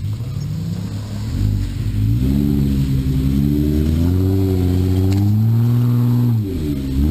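Jeep Wrangler Unlimited's engine pulling under load on an off-road trail: the revs climb about a second and a half in, hold with slight wavering, then drop briefly and pick up again near the end.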